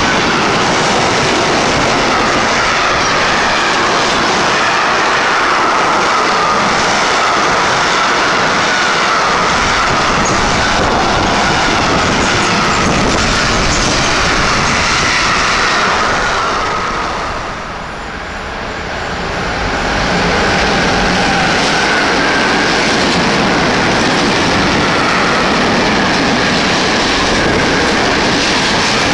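Freight train wagons rolling past at speed: a loud, steady rumble and clatter of wheels on rail, with a wavering high whine from the wheels. The noise fades briefly about two-thirds of the way through, then comes back as more wagons pass.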